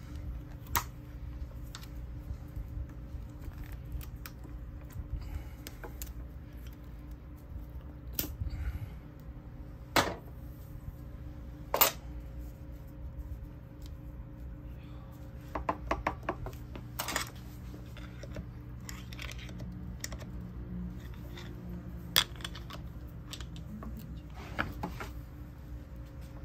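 Scattered metallic clicks and clinks of pliers and starter-motor parts being handled during disassembly: the brush holder plate is worked off and the armature is drawn out of the field housing. A few sharper clinks stand out, two of them loudest in the middle. A steady low hum runs underneath.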